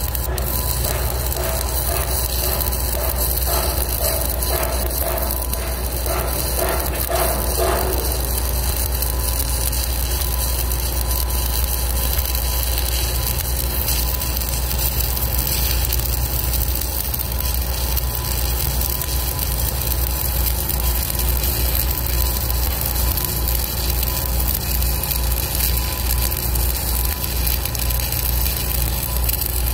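Stick (shielded metal arc) welding arc of a 1/8-inch 7018 electrode, Lincoln Excalibur, run at about 126 amps, burning steadily without a break.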